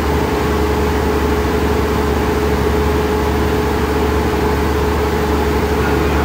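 Stationary diesel train's engines idling, a steady low rumble with a constant hum over it.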